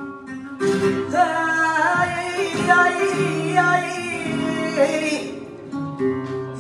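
Live flamenco singing over flamenco guitar: a singer comes in strongly about half a second in with a long, wavering vocal line, which fades near the end.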